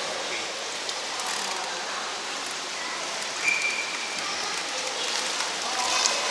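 Steady splashing and running of pool water, with the water stirred as a man in a wetsuit moves and stands up in it; a short high tone sounds about three and a half seconds in.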